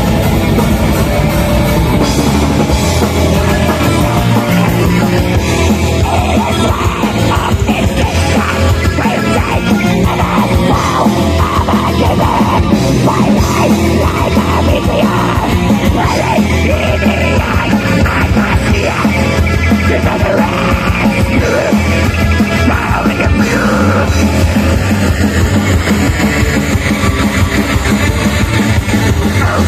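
Metal band playing live at full volume: distorted guitars and drum kit in a dense, unbroken wall of sound.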